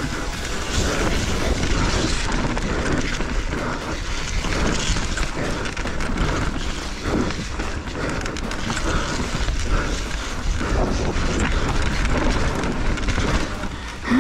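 Mountain bike riding fast over rough ground: wind buffeting the microphone, with tyres rumbling and the bike rattling and knocking over bumps.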